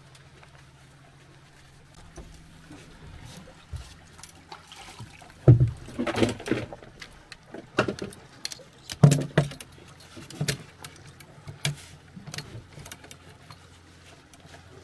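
Gear being rummaged through and handled: a run of knocks, clatters and metallic clinks starting about five seconds in, over a faint steady low hum.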